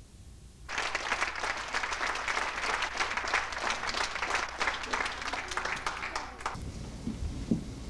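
Theatre audience applauding, the clapping starting suddenly about a second in and stopping near the end, followed by a few low thuds.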